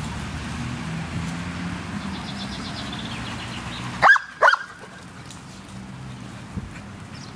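A dog barking twice in quick succession, two short sharp barks about four seconds in, over a steady low background hum.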